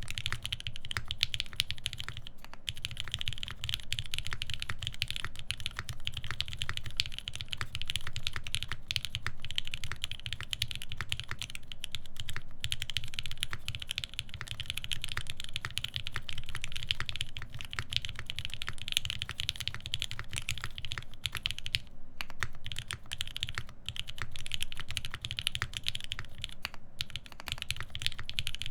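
Steady, fast typing on a SINGA Unikorn R2.1 mechanical keyboard with Krytox 205g0-lubed Lavender switches, a full FR-4 plate and GMK keycaps: a dense run of key clicks and bottom-outs, broken by a few short pauses.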